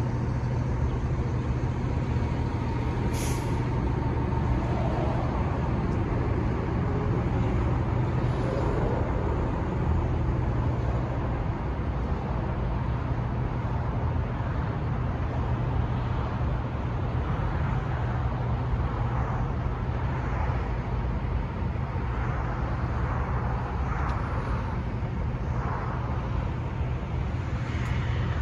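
Mack MP7 diesel engine of a 2010 Mack GU713 roll-off truck idling steadily, a constant low hum.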